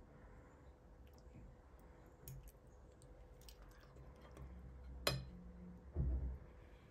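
Knife and fork cutting into a soft, cheesy cauliflower gratin on a plate, with faint scattered clicks of the cutlery. A sharper clink of metal on the plate comes a little after five seconds, and a short low thump about a second later.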